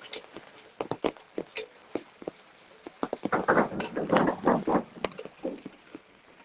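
Irregular sharp taps and clicks, with a denser burst of rustling and clattering about three to five seconds in.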